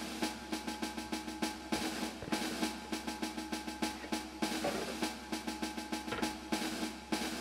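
Background music, mostly a fast, even snare-drum pattern of about six or seven hits a second over a few held notes.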